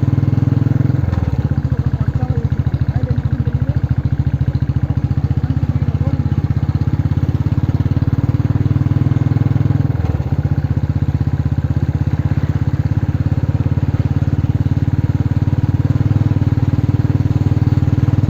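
Motorcycle engine running steadily while riding, with two brief breaks in its note, about a second in and again about halfway.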